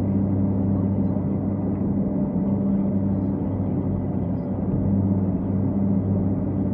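Excavator's diesel engine running steadily, a constant low hum heard from inside the operator's cab.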